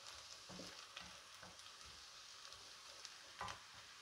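Faint sizzling of chopped onions and spices frying in oil in a nonstick pan, with a few soft scrapes of a slotted spatula stirring them.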